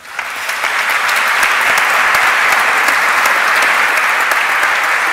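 Audience applauding: dense clapping that starts suddenly and keeps up at a steady level.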